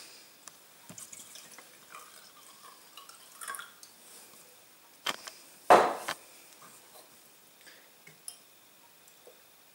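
Liquid poured from a glass measuring jug into a wine glass, with small glass clinks and one sharp knock a little past halfway.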